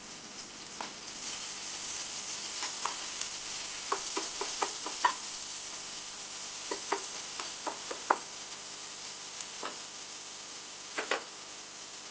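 Food sizzling in hot oil in a pan while a spoon stirs it, knocking against the pan in short runs of clicks.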